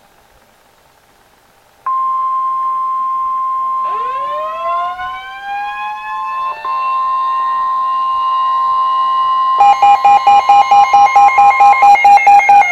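Emergency Alert System alert sequence for a special marine warning. After about two seconds of near silence a steady high tone starts, a siren winds up over it about two seconds later and holds, and near the end a loud, rapidly pulsing alarm comes in at about four pulses a second.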